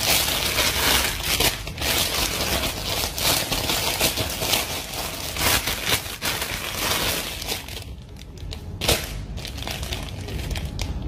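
Clear plastic poly bag crinkling and rustling as it is handled and opened to take out a garment, with a brief lull and then a sharp crackle about nine seconds in.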